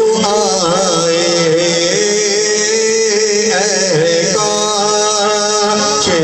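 A man singing a naat, an Urdu devotional poem, through a microphone and loudspeakers, in long ornamented phrases that slide between notes, over a steady low drone.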